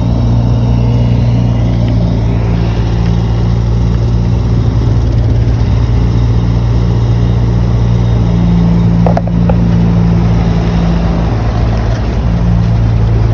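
Heavy diesel engine of earthmoving equipment running steadily under load, with a deep, even hum. A short click about nine seconds in.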